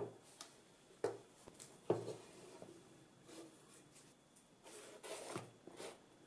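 Three knocks about a second apart as a baked loaf is turned out of a metal bread-maker pan onto a wooden board, then a soft rustle as the loaf is handled.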